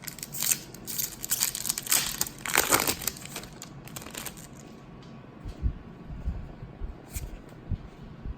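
A Magic: The Gathering booster pack's wrapper is crinkled and torn open, with dense crinkling for about four seconds. It is followed by a few soft low knocks as the cards are handled.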